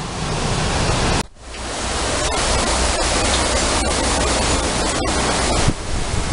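Heavy rain pouring and gusty hurricane wind, a loud steady hiss of noise. It cuts out abruptly about a second in and builds back; near the end the wind turns gustier, with low buffeting on the microphone.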